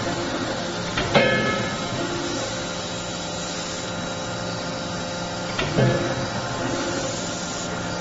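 40 kJ CNC fully hydraulic closed-die forging hammer striking a hot flange-yoke workpiece in the die: two sharp metallic blows about four and a half seconds apart, the first ringing on briefly, over a steady machine hum.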